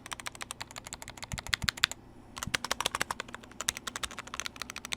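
Glorious GMMK Pro mechanical keyboard being typed on fast, a dense run of key clacks with a short pause about two seconds in. A few deeper key thuds come shortly before the pause.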